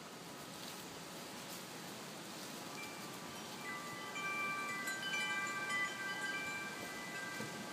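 Wind chimes ringing: several clear notes overlap and ring on, starting about three seconds in, over a faint outdoor hiss.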